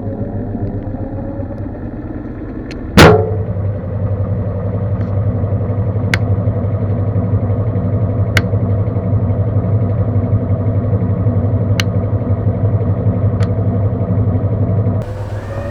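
Whirlpool 360 Bloom Wash top-loading washing machine spinning its drum during the spin stage of its self-test, a steady motor hum. A loud knock comes about three seconds in, followed by a few sharp single clicks. The drive cuts back near the end.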